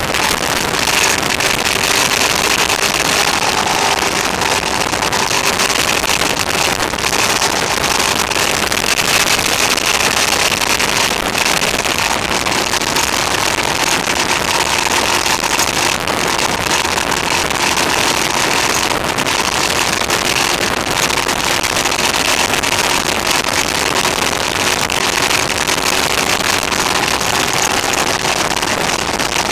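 Motorcycle cruising at steady speed, recorded on an onboard camera: wind rushing over the microphone with the engine's steady drone underneath. The recording level is set too high, so the sound is harsh and overdriven.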